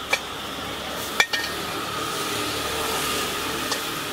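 Two short, sharp metallic clinks about a second apart, like metal utensils or tins knocked together, over a steady background hiss.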